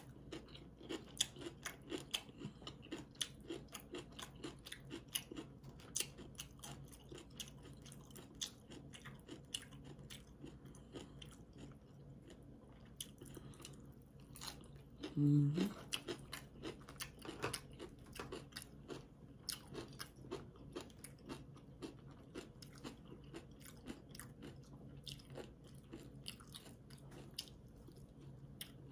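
Close-up chewing and crunching of food, fresh cucumber slices among it: many short, crisp crunchy clicks through the whole stretch. About halfway there is a brief low vocal sound, the loudest moment.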